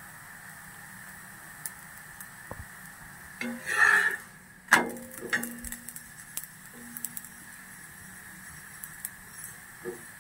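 A spatula scrapes, then clanks sharply against an iron tawa about halfway through with a brief ringing tone, followed by light taps as it presses down on a rice roti. A faint steady hiss runs underneath.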